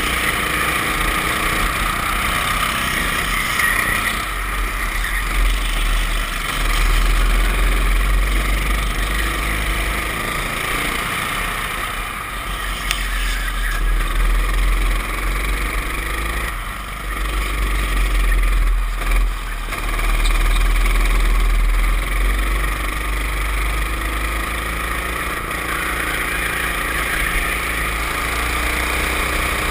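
Racing go-kart engines running hard, heard from an onboard camera with wind buffeting the microphone; the engine note rises and falls through the corners.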